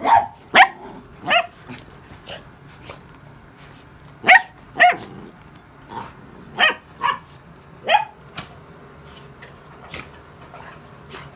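Dogs barking: about eight short, sharp barks in irregular bunches, a few in the first second and a half, a pair around four to five seconds in, and several more between six and a half and eight seconds.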